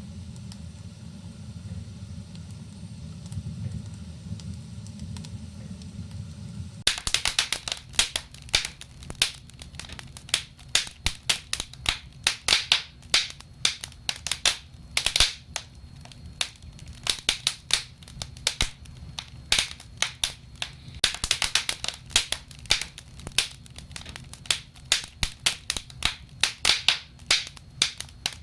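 Wood fire in a fireplace crackling and snapping with dense, sharp pops. For the first few seconds there is only a steady low rumble, and then the crackling starts abruptly.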